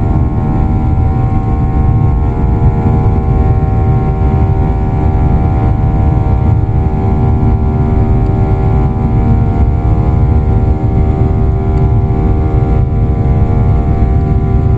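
Airliner jet engines at takeoff power, heard from inside the cabin during the takeoff roll and climb-out: a steady, loud low rumble with a steady hum of several whining tones over it.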